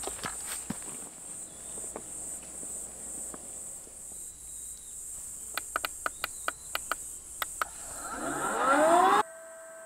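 Crickets chirp steadily while a string of about nine sharp clicks comes from the control panel of a Coody electric air pump, its buttons being pressed. Then the pump's motor starts: a whine rising in pitch and growing loud, which changes suddenly near the end to a steady hum.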